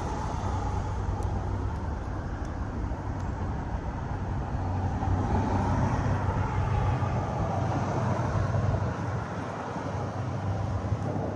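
Steady vehicle rumble: a continuous low hum with a broad rushing noise over it, swelling slightly midway.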